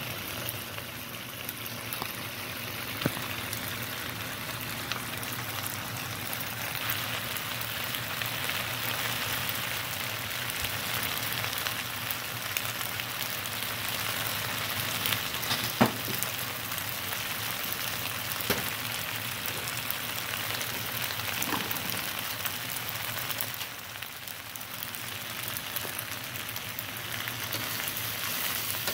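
Shredded chicken pasta in cream sauce sizzling steadily in a frying pan, with a few sharp clicks, the loudest about halfway through.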